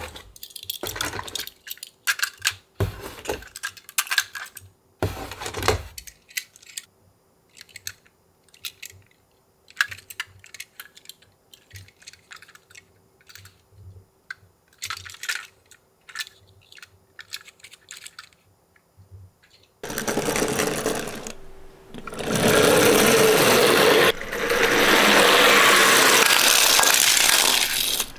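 Irregular small clicks and clacks of die-cast toy cars being handled for most of the stretch. About two-thirds of the way in comes a loud continuous rattling noise lasting several seconds.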